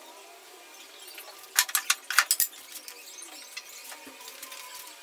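A quick run of several sharp knocks and clicks, about one and a half seconds in, from an aluminum rear fender and wooden spacer block being handled and set against a motorcycle's rear frame.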